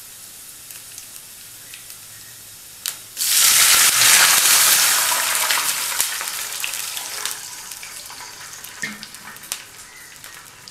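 A tempering of cashews, dals, green chilli and ginger sizzling softly in hot ghee in a pan; about three seconds in, water is poured in and hits the hot ghee with a sudden loud hissing sizzle that slowly dies away.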